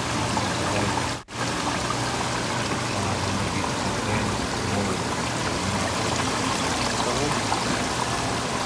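Water pouring and splashing steadily over live mussels in a shellfish display tank, a constant rushing noise. It cuts out for an instant about a second in.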